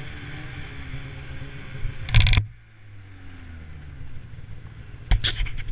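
Snowmobile engine running on a snowy trail, with a loud knocking jolt about two seconds in, after which the engine note drops and the sled slows. More knocks and rattles come near the end.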